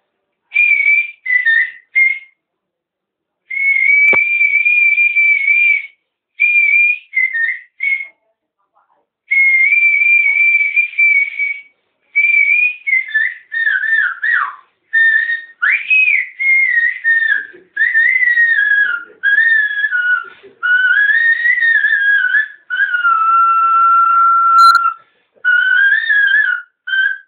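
A man whistling an ornamented, wavering folk melody in short phrases with brief breaks, the tune sitting lower and sliding more in its second half.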